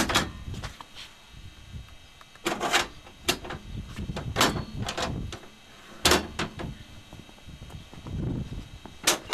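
Sharp metal clicks and clanks of a small trailer's stabilizer jacks being released and pushed up, about a dozen strikes spread unevenly, with footsteps on concrete between them.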